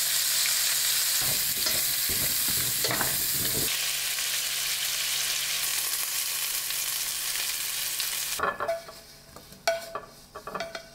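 Carrot discs sizzling as they fry in coconut oil in a pan, with a utensil scraping and stirring through them for a couple of seconds. The sizzle cuts off suddenly near the end, leaving a few light clicks and clinks.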